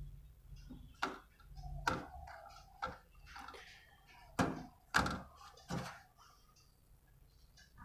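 Hands working inside an open desktop computer case, prying the processor out of its motherboard socket: about six sharp clicks and knocks of metal and plastic with scraping handling noise between them. It quietens near the end.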